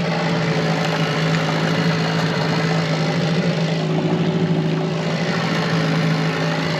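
Fishing boat's engine running steadily at trolling speed, a constant low hum with a rushing noise over it.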